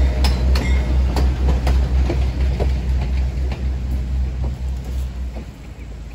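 Short freight train going by and moving off: its wheels click over the rail joints as the last cars and caboose pass, over the diesel locomotive's low pulsing throb, and both fade, the engine sound dying away near the end.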